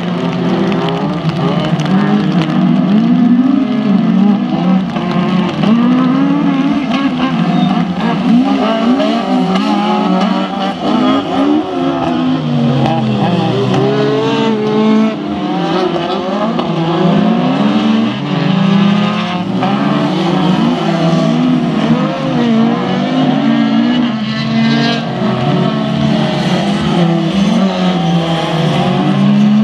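Rallycross race cars racing on a wet track, their engines revving up and down as they accelerate, shift gears and lift off through the corners, with several engines overlapping.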